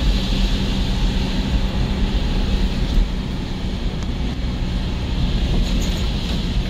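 Steady engine and road noise of a vehicle driving along a road, mostly low rumble with a faint constant hum.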